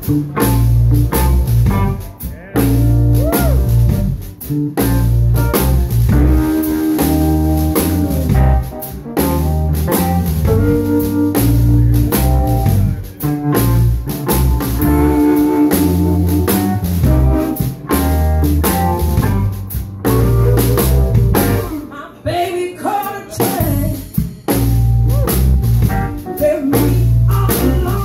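Live blues band playing: electric bass, drum kit and electric guitar.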